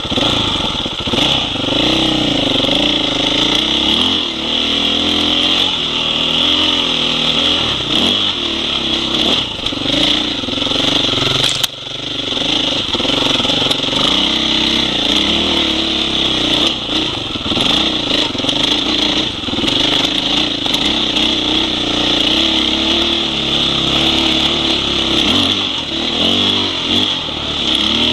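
Husqvarna 501 Enduro's single-cylinder four-stroke engine riding a dirt trail, its pitch rising and falling with the throttle, with a brief drop about twelve seconds in.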